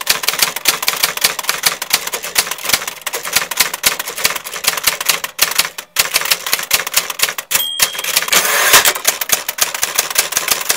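A fast, irregular run of sharp clicks like rapid typing, with a brief pause about six seconds in, a short high ding about seven and a half seconds in, and a brief rushing swell just after it.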